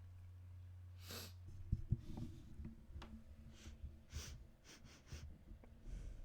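A woman sniffing sharply through the nose: one longer sniff about a second in, then a quick run of short sniffs. There are two sharp knocks, the loudest sounds, just before two seconds in.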